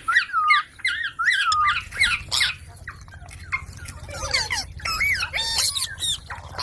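Baby Indian ringneck parakeet calling: a quick run of short, repeated high-pitched squawks for the first second and a half, then looser, more varied chattering calls.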